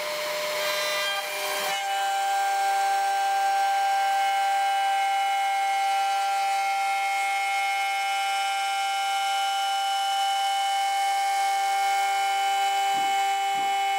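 The 800-watt spindle of a DIY CNC router milling aluminium plate with a carbide end mill gives a steady high whine. Harsher cutting noise comes through during the first two seconds, and a few short low thumps sound near the end.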